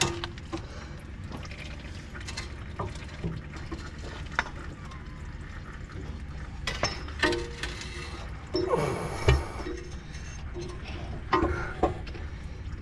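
Scattered metal clinks and knocks as a pry bar and hands work a Honda Pilot's front CV axle out of the transfer case, with a louder rattling scrape about nine seconds in.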